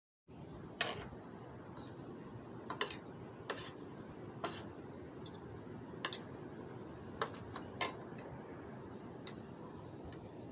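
Metal fork and spoon clicking and tapping against a plate while scooping up food, about a dozen sharp clicks at uneven intervals over a faint steady hiss, beginning after a brief moment of dead silence.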